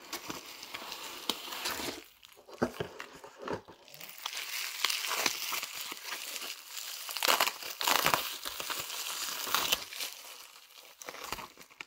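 Cardboard box handled at first, then plastic bubble wrap crinkling and rustling as it is pulled off a glass jar, with many small sharp crackles.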